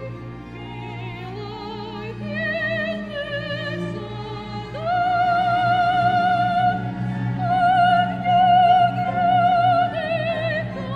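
A soprano sings a slow, climbing phrase in Russian with wide vibrato, holding long high notes and stepping down near the end. A chamber orchestra's strings sustain a low accompaniment underneath.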